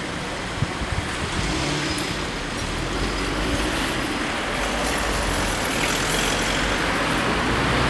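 Cars pulling away and driving over a level crossing just after the barriers lift: steady engine and tyre noise that grows louder as the traffic comes closer.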